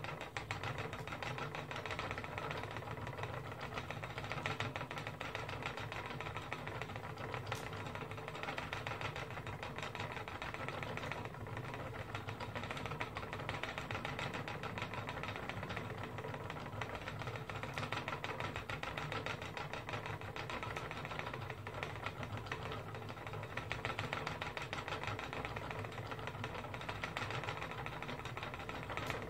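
Wooden treadle spinning wheel running steadily as wool is spun, a continuous, evenly rhythmic mechanical rattle from the turning wheel and its treadle.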